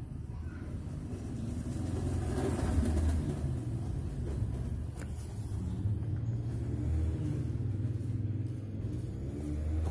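Low rumble of a motor vehicle engine running, its pitch wavering in the last few seconds.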